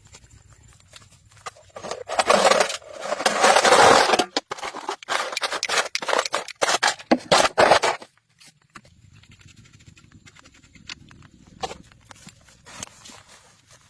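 Scraping with many sharp knocks and clatters, loudest between about two and eight seconds in, then dropping to faint scattered taps.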